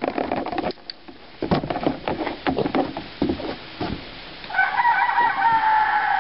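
A pig chewing and snuffling at food, with irregular crunches and clicks. About four and a half seconds in, a rooster crows once, one long call of nearly two seconds that dips slightly in pitch at the end.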